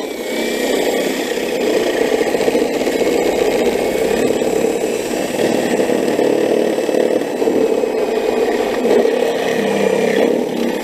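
Cordless drill running steadily under load, its bit wallowing out a drilled hole to enlarge it because the hole is not quite big enough.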